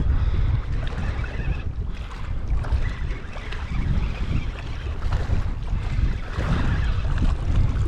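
Strong wind buffeting the microphone: a steady, gusting low rumble with a rushing hiss over it.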